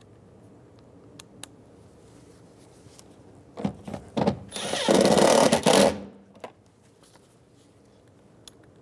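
Power screwdriver driving a door-panel screw: a few short stuttering bursts, then a steady run of about a second and a half that stops abruptly. A few light clicks come before it.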